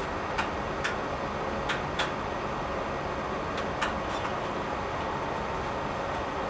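Motorized mobile compact shelving unit running along its floor rails, a steady mechanical rumble, with about six light clicks in the first four seconds.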